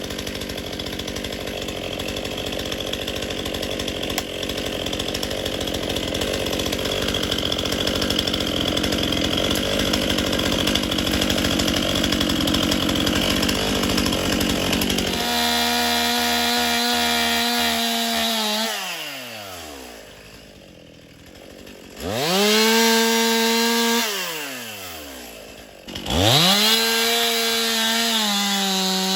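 Two-stroke chainsaw cutting through a downed tree, the engine running under load for about the first half. It then comes out of the cut and revs freely, falls back toward idle, and is throttled up sharply twice more.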